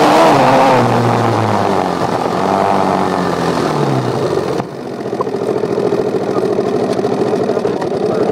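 Dirt bike engine coming off the throttle, its revs falling as the bike slows, then settling into a steady, evenly pulsing idle from about halfway through.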